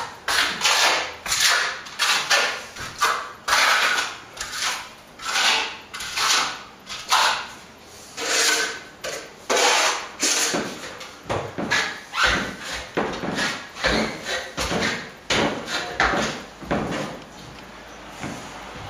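Steel plastering trowel spreading wet white set-coat plaster across a wall in repeated scraping sweeps, roughly one or two strokes a second, dying away near the end.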